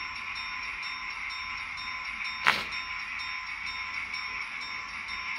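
Model railway level crossing warning bell ringing with evenly repeated strokes while the crossing closes and its barriers come down. A single sharp click about two and a half seconds in.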